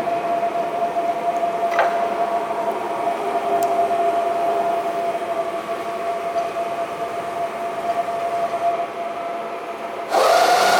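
Safan SMK servo press brake running: a steady whine over mechanical noise, with a sharp click about two seconds in and a louder surge near the end.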